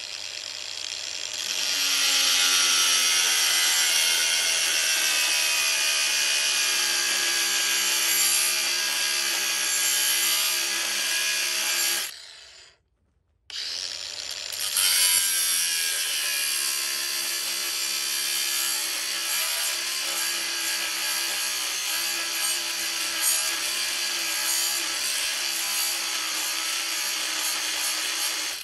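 A handheld power tool's motor running against the work in two long runs, its pitch wavering, with a brief stop about twelve seconds in.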